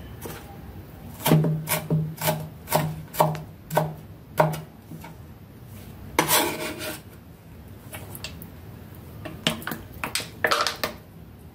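A kitchen knife chopping ginger on a wooden cutting board: about eight steady strokes, each with a dull thud of the blade on the board. A longer scraping follows, then a few lighter knocks near the end.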